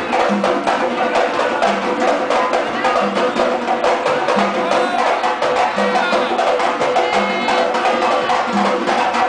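Congas and a timbal bahiano (timbau) played by hand in a fast percussion arrangement: dense rapid drum strokes, with a low note recurring about every second and a half.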